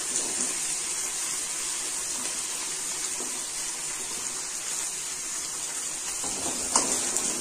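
Hot oil sizzling steadily in a kadai as wet, halved turkey berries are dropped in by hand. Near the end a wooden spatula starts stirring them, with a few scraping strokes.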